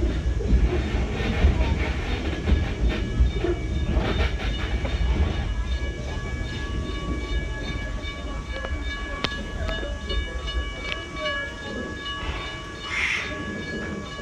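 Steam-hauled passenger train rolling out at low speed: a steady low rumble of wheels on track with occasional clicks. Faint high steady tones come in about halfway through.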